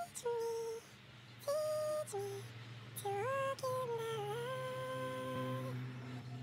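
A woman humming a slow lullaby to put a baby to sleep, in long held notes that slide gently from one to the next, the longest held for about two seconds near the end.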